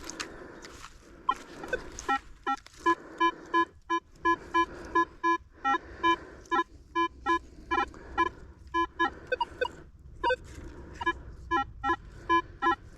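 Metal detector, a Minelab Manticore, beeping repeatedly in short, quick tones as the coil is swept back and forth over a buried target. The beeps come about two to three a second and signal a repeatable target reading in the 11 to 13 range.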